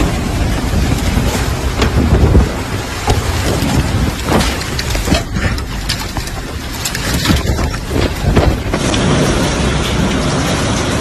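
A thunderstorm: heavy rain and wind noise with a low rumble and scattered sharp cracks. About nine seconds in it switches to another storm recording with a steadier rush.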